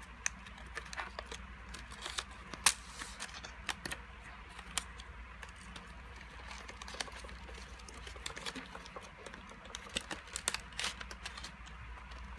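Irregular small clicks, taps and light rustling from an aluminium wallet and its packaging being handled and worked open, one sharper click about two and a half seconds in and a flurry of clicks near the end. A steady low hum runs underneath.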